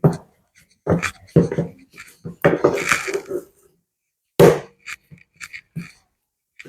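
A person's voice in short wordless bursts, irregularly spaced.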